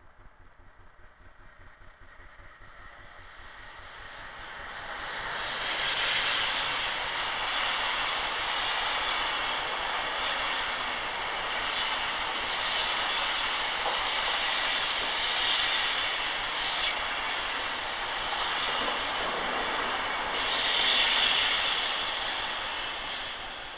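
Passenger train hauled by a DB Class 101 electric locomotive passing close by on a curved track: a rush of wheels on rail that builds over the first few seconds, stays loud while the coaches go by with a high wheel squeal, and fades near the end.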